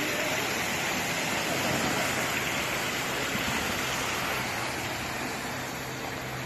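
Steady, even hiss of water, with no separate splashes or drops.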